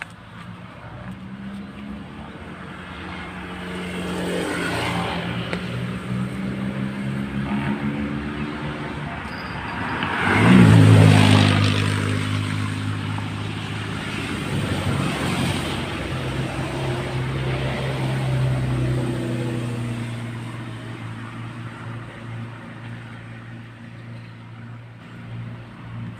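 A motor engine passing by: its note builds over several seconds, is loudest about ten seconds in as the pitch bends, then slowly fades away.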